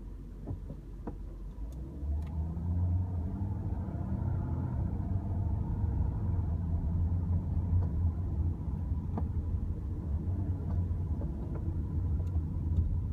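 2008 Lexus LS 460's V8 running with a steady low rumble that swells about two seconds in. A few sharp, irregular clicks come through over it, the knocking/clicking noise the owner is documenting.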